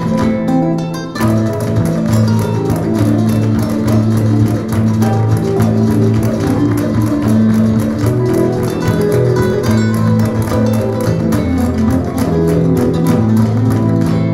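Guitar-led instrumental music with a Latin, flamenco feel over steady bass notes, played back through an IKEA Symfonisk table-lamp Sonos speaker.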